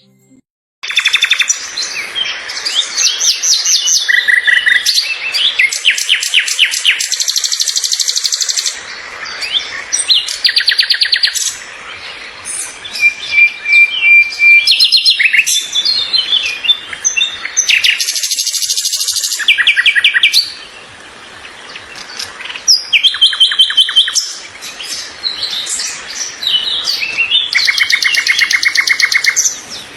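A chorus of several birds calling and singing at once: fast trills, rapidly repeated chirps and high whistles overlapping one another, starting abruptly about a second in.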